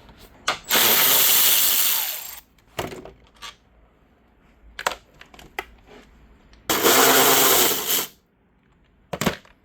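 A cordless power tool runs in two bursts of about a second and a half each, spinning out 10 mm headlight mounting bolts, with short metallic clicks of the socket and bolts in between.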